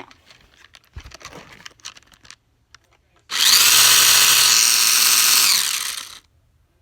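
Remote control car's motor revved at full throttle: a loud, high whine that rises, holds for about three seconds, then winds down and stops. It is preceded by light clicks of the car being handled.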